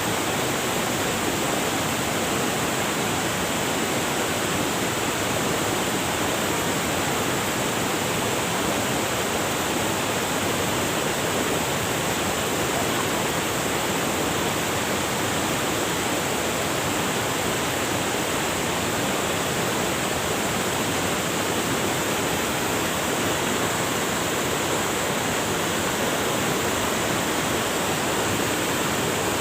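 River water rushing over rocks: a steady, unbroken rush.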